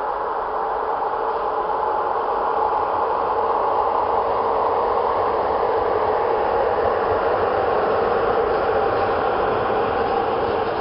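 A CFR electric locomotive and its double-deck passenger coaches rolling past, a steady rumble of wheels on rail that builds slightly over the first couple of seconds and then holds.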